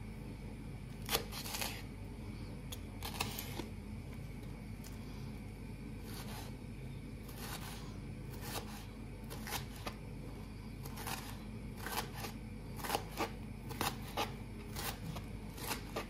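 Irregular light clicks and rustles of kitchen handling during food preparation, over a steady low hum.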